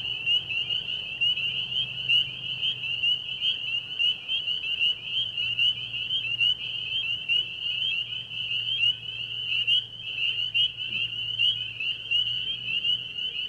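Crickets chirping in a dense, steady chorus of rapid pulsing trills on one high pitch.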